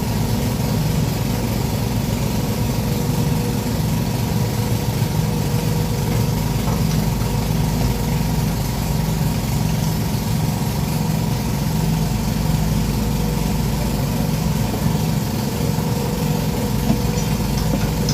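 Sumitomo SH210-5 excavator's diesel engine running steadily at a low, even speed.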